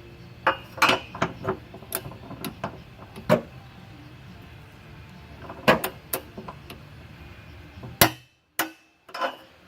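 Scattered sharp metallic clicks and knocks of hand tools being handled: a torque wrench with socket and extension being fitted and set on the suspension bolts. There are about a dozen irregular strikes, and the sound cuts out briefly near the end.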